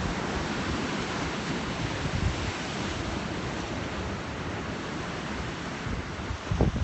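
Steady rush of sea surf and wind on a phone microphone, with a brief low thump near the end.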